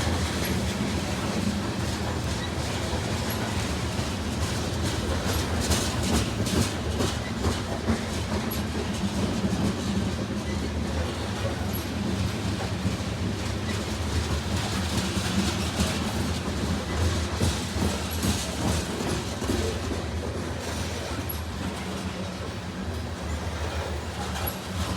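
Freight train cars rolling past with a steady rumble, their wheels clacking over rail joints.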